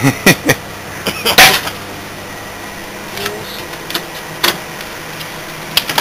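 Microwave oven humming as it runs with a DVD player burning inside, over a string of sharp pops and cracks, like popcorn, from the cooking electronics; the loudest pop comes about a second and a half in.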